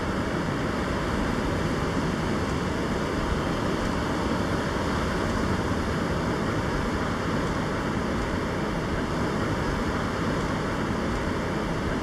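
Steady rush of surf breaking along a sandy beach, mixed with wind on the microphone.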